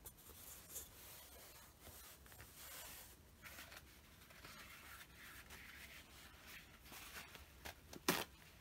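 Faint rustling and light handling of small objects on a cloth-covered tabletop, with one sharp tap near the end.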